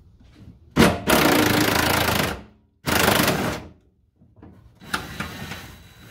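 Impact wrench hammering in two loud bursts, a longer one about a second in and a shorter one about 3 s in, loosening the fuel-tank strap bolts, followed by fainter rattling near the end.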